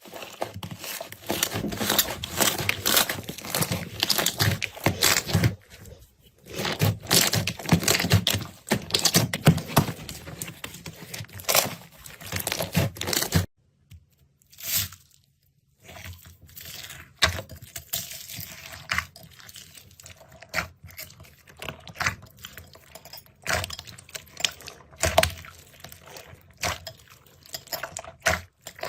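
Slime being squeezed and pressed by hand, giving dense crackling and popping. After a short pause about halfway through, sparser pops and clicks follow.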